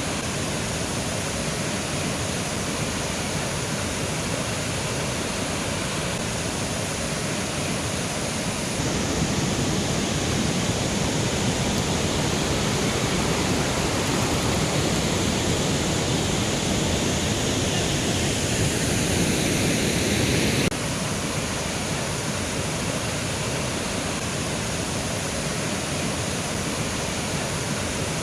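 Mountain river rushing over rocks, a steady full-spectrum rush of water. About a third of the way in it grows louder, then drops back suddenly about three quarters of the way through.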